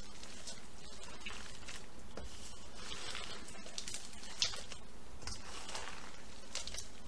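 Gloved hands kneading and squishing a raw meatloaf mix of ground beef, pineapple chunks, mixed vegetables and salsa in a stainless steel bowl, in irregular squishes, with one brief louder tap about four and a half seconds in.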